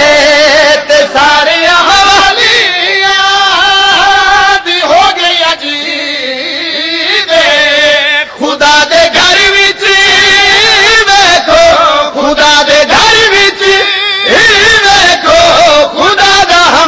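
Man singing a Punjabi devotional qasida in praise of Ali into a microphone, with ornamented notes that waver in pitch and some long held notes.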